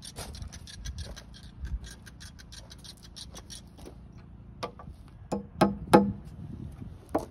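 A claw hammer knocking on an old nail in a rough black locust board, a few sharp ringing knocks close together as the claw is worked under the nail head to pull it. Before that, a run of light, rapid ticks.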